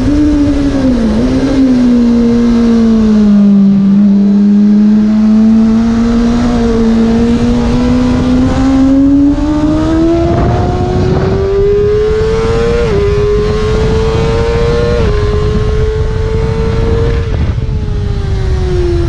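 Kawasaki Ninja ZX-6R 600 cc inline-four revving hard on track: the engine note sinks low early on, climbs steadily to a high scream, drops briefly at two upshifts in the middle, then falls away near the end as the bike slows for a corner. A steady wind rush runs under it.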